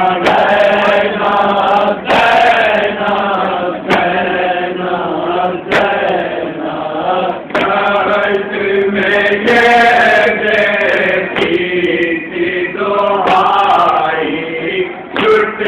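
Men chanting a nauha, a Shia mourning lament: one lead voice with a group of voices joining in. A sharp beat falls about every two seconds, in time with the chant, from matam chest-beating.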